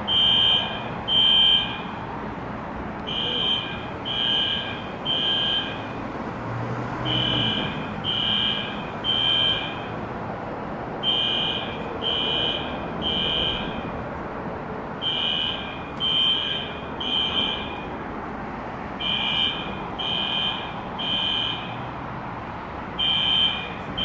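Building fire alarm sounding the temporal-three evacuation pattern: three high-pitched beeps about a second apart, then a pause, repeating every four seconds.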